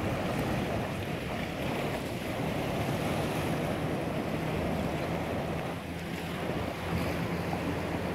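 Ocean surf washing against the rocks and reef, mixed with steady wind noise on the microphone.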